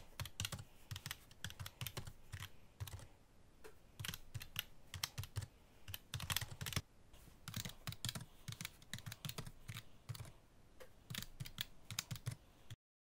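Typing on a keyboard: quick, irregular key clicks with a few brief pauses, stopping suddenly near the end.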